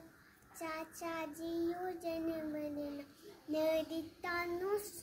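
A young girl singing, holding notes in short phrases; the singing starts about half a second in.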